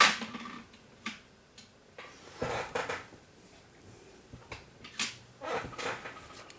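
A sharp knock at the start, then a small click and two short spells of rattling clatter as small objects are handled and set down.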